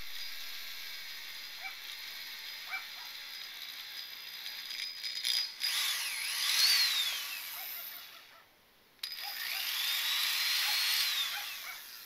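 Power drill boring into a piece of square metal stock clamped in a bench vise. The motor's whine rises and falls in pitch with the trigger in two runs, with a short stop about eight seconds in.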